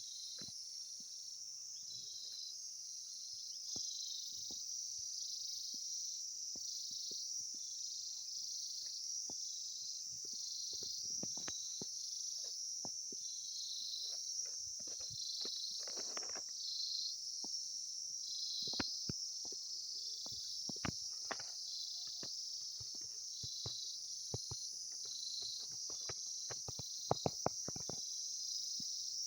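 A chorus of insects: a steady, high-pitched shrill that swells about once a second, with scattered faint clicks and a few sharper clicks near the end.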